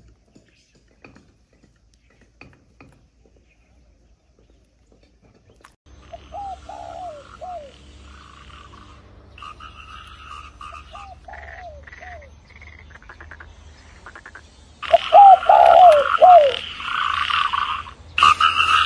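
Frogs croaking: short calls that bend up and then slide down, in twos and threes, starting about six seconds in and becoming much louder near the end. The first few seconds are nearly quiet, with only faint clicks.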